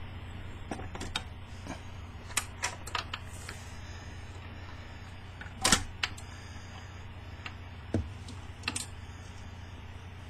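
1958 Admiral 432 record changer cycling to play a 45: a steady motor and mains hum with a scattering of mechanical clicks and clunks from the changer mechanism and tone arm. The loudest clunk comes a little past halfway.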